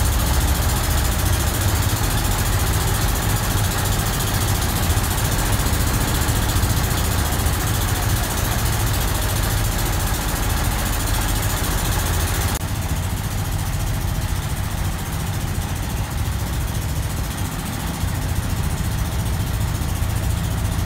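River ferry boat's engine running steadily under way, a low hum with a steady hiss over it; the hiss eases about two-thirds of the way through.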